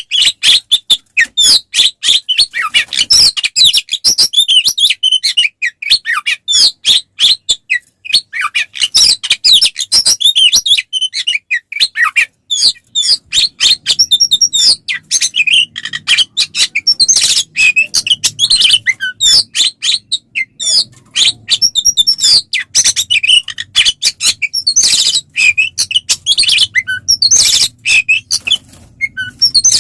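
Oriental magpie-robin (kacer) singing a fast, unbroken stream of loud whistles and chirps. This is its full-throated 'ngeplong' fighting-mode song, of the kind used to provoke other male kacer.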